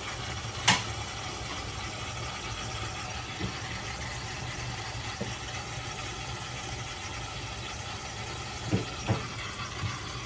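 Kitchen tap running steadily into a bowl of potatoes as they are rinsed by hand, with a sharp knock about a second in and a few softer knocks near the end.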